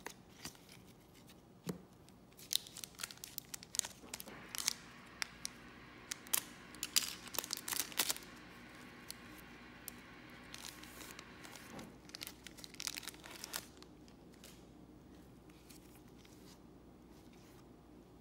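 Foil trading-card pack wrapper torn open and crinkled by hand, in crackling bursts from about two to eight seconds in and again around twelve to thirteen seconds.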